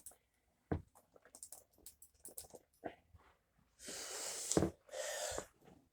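A person's breathing: two short, breathy exhales or sniffs near the end, amid light clicks and knocks of handling.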